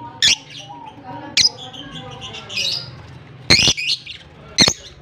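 Lovebirds calling: four short, shrill, loud squawks spaced about a second apart, with softer high chattering twitters between them.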